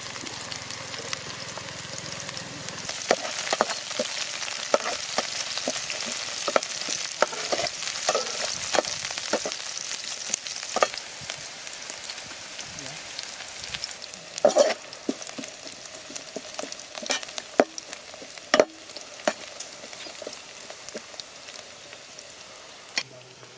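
Chicken frying and sizzling in hot oil in a pan, stirred so that the utensil knocks and scrapes against the pan many times at irregular intervals.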